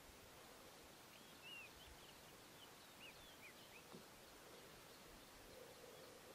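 Near silence, with a run of about ten faint, short, high chirps from a small bird starting about a second in and lasting two to three seconds.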